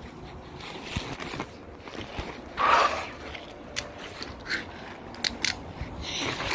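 Scraping and sharp clicks of handling against a wooden floor, with a louder rustling scrape about two and a half seconds in.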